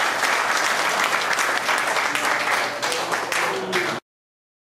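A roomful of people applauding, many hands clapping at once, thinning a little before the sound cuts off suddenly about four seconds in.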